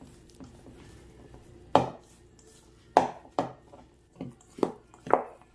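A mixing utensil knocking against a bowl as thick dog-biscuit dough is stirred: six sharp knocks, the first nearly two seconds in.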